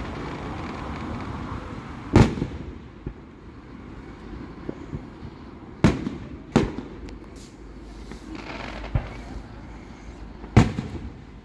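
Fireworks going off: four sharp, loud bangs about two, six, six and a half and ten and a half seconds in, with fainter pops between them and a crackling hiss over the first couple of seconds.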